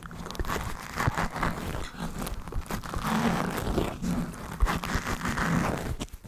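Close-up dry mouth sounds layered with scratching on the microphone: a dense, continuous crackle of small clicks and scrapes.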